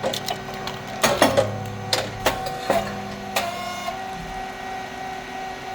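SYP5804T rice cake popping machine running: a steady hum from its motor and hydraulic pump, with a series of sharp clacks and pops as the moulds cycle, the loudest a little over a second in.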